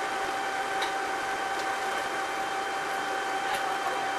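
Bus running, heard from inside near the rear engine: a steady whine with a second, higher tone over a hiss of running noise, with a few faint ticks.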